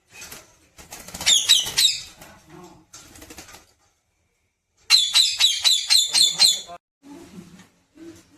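Pet parrot giving two bursts of rapid, high-pitched repeated chirping calls, the first about a second long and the second nearly two seconds, with fainter lower chatter between and after them.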